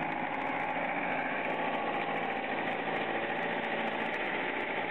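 Engine of a GAZ-66 cab-over army truck running steadily as the truck drives slowly forward.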